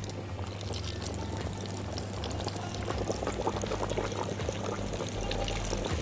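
Breaded chicken breasts deep-frying in hot oil, sizzling with a dense, steady crackle that grows a little louder about halfway through.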